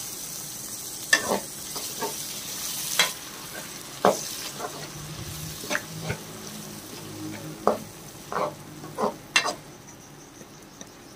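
Tomatoes and green chillies sizzling in hot oil in an aluminium karahi, stirred with a steel ladle that scrapes and clinks against the pan again and again.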